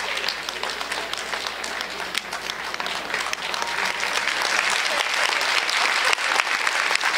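Audience applauding, growing a little louder about halfway through.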